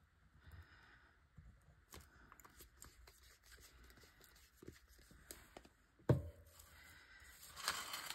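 Quiet clicks and scrapes of hands handling small craft items on a tabletop, with one sharp knock about six seconds in and a short rustle near the end.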